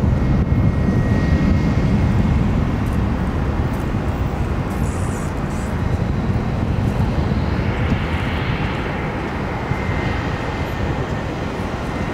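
Jet airliner engines running: a steady low rumble with a faint high whine that comes and goes, from an Airbus A380 on the runway and a narrow-body Airbus on final approach.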